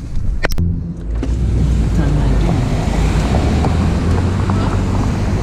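A sharp knock about half a second in, then a vehicle's engine running with a steady low rumble.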